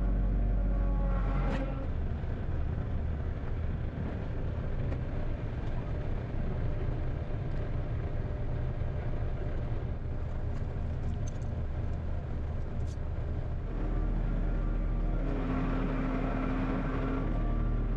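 A vehicle engine running steadily with a low drone, its note shifting about two seconds in and again about four seconds before the end.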